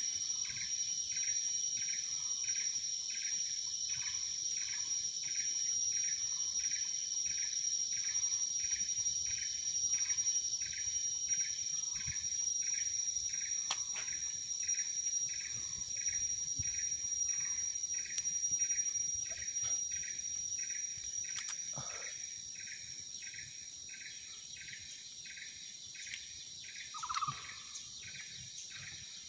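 Tropical insects calling: a steady high-pitched drone with a short chirp repeating about twice a second, which fades out in the later part. A single brief lower call sounds near the end.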